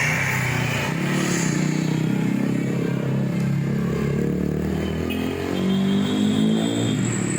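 Bus engine running, its note rising and falling in pitch.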